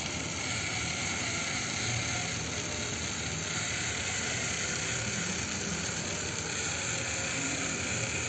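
Small battery-powered toy motor and plastic gear train of a model Ferris wheel, running steadily as the wheel turns.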